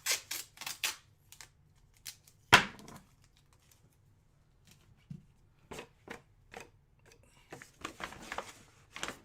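Packaging being handled and opened by hand: crinkling, rustling and scraping, with a sharp thump about two and a half seconds in.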